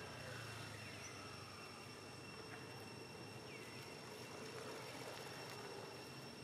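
Faint outdoor ambience: a steady, high-pitched insect drone, with a few short, faint falling chirps about a second and three and a half seconds in.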